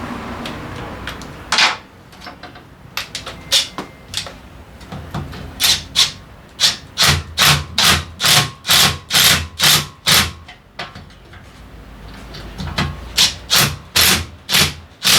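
Repeated hand rubbing or scraping strokes, about two to three a second, in runs with short pauses between them. A steady running noise stops about a second and a half in, before the strokes begin.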